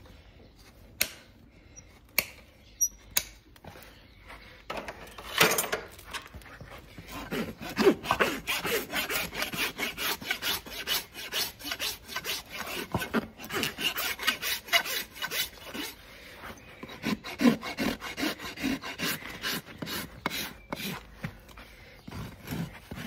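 A few sharp clicks, then a farrier's steel hoof rasp filing across a horse's bare, hard hoof in quick, even back-and-forth strokes from about five seconds in, evening up the foot before shoeing.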